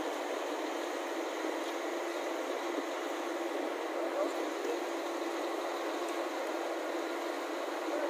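Several large diesel coaches idling together in one steady drone, with a constant hum.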